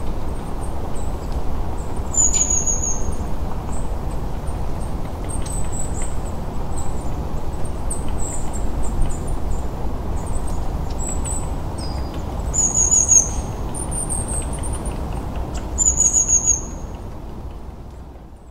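Nature ambience: small birds chirping in short, very high-pitched notes, some sliding downward, over a steady low rushing noise. It fades out near the end.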